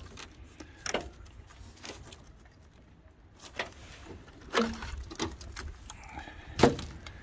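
Scattered light clicks and crackles of a hand working at rust-rotted steel on a Ford Cortina Mk4's bulkhead, flaky rust scale crunching and tapping as it is prodded. The sharpest crack comes near the end.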